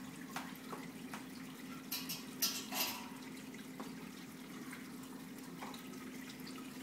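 Wort running through a vinyl siphon tube from the brew kettle's valve into a glass carboy, trickling and splashing into a head of sanitizer foam. A few brief louder noises come about two to three seconds in, as the tube is moved in the carboy's neck.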